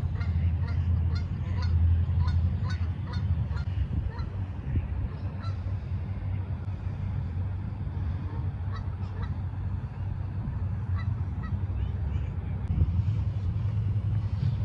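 A flock of waterfowl calling, many short repeated calls overlapping, busiest in the first half and again past the middle, over a steady low rumble.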